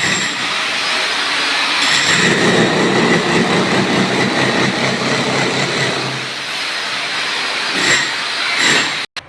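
Concrete-cutting saw running under load through concrete: a loud, steady grinding roar with a high whine, heavier and lower for a few seconds about two seconds in. It cuts off abruptly near the end.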